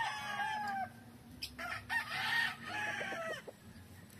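Game roosters crowing: one crow trailing off about a second in, then a second crow from about a second and a half to three and a half seconds in, falling away at the end.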